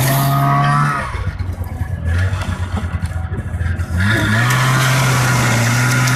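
A petrol engine running at high revs, easing off to a rough, lower idle about a second in, then speeding back up to a steady high note near four seconds.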